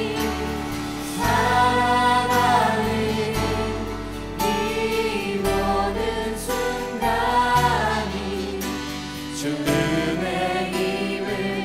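Full worship band playing, with an Alleva Coppolo LG5 five-string electric bass holding low notes that change every second or two under voices singing long, held phrases.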